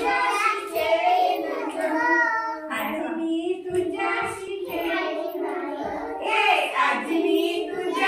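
Group of young children singing a Marathi action song together, in a small room.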